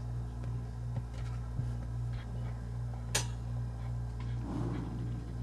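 Steady low electrical hum from the bench equipment, with a single sharp click about three seconds in.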